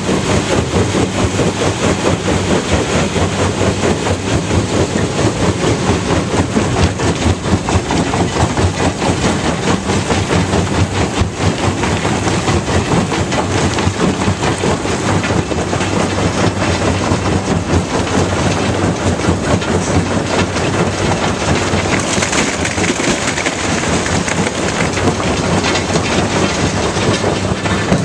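Fintec 1107 tracked jaw crusher running under load: a steady diesel engine hum under a dense, continuous rattling clatter of limestone being fed and crushed in the jaw.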